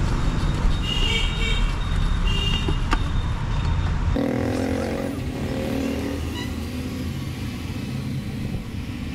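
Busy road traffic: vehicle engines running by with a heavy low rumble, and short high beeps about a second and two and a half seconds in. The rumble eases about four seconds in, where a lower pitched tone sounds briefly.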